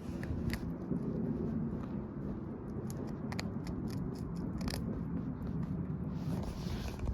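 A rabbit crunching a hard treat: short crisp bites and chewing clicks coming irregularly, over wind rumbling on the microphone.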